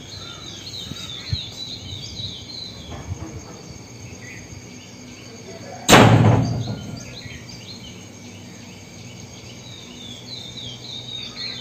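Small birds chirping in quick, repeated high calls over a steady high insect drone, with one brief loud burst of noise about six seconds in.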